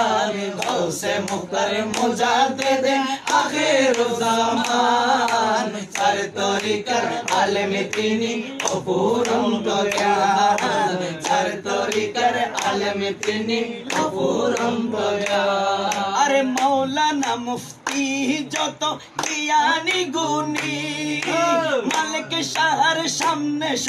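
A man singing a Bengali devotional manqabat in praise of a Sufi saint, with other men's voices joining in, and hand claps sounding through the singing.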